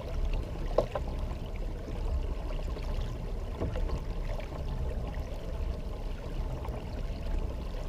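Water rushing and trickling along a pedal kayak's hull as it moves at about 3 miles an hour, over a low steady rumble, with a light knock just under a second in.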